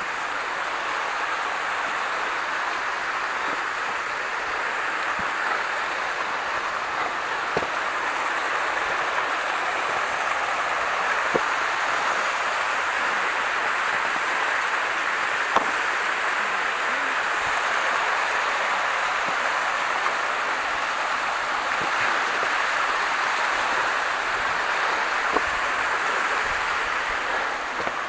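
Waterfall water rushing in a steady hiss, with a few faint knocks scattered through it.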